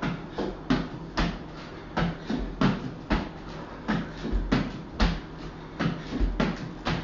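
Burpees on a tiled floor: sneakers and hands thudding and slapping on the tile as the body drops to a plank, kicks back in and jumps. There are about two impacts a second, in a quick uneven rhythm.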